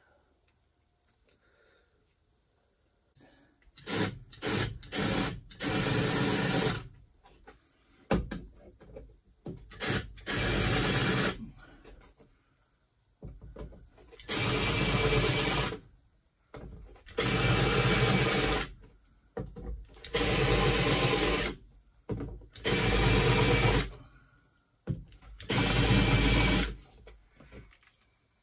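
Cordless drill boring holes through a metal threshold plate. A few short trigger pulses come about four seconds in, then seven runs of about a second and a half each, with pauses between.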